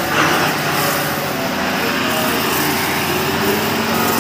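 Pressure washer running: its pump motor drones steadily while the water jet hisses against a truck's front grille and engine bay.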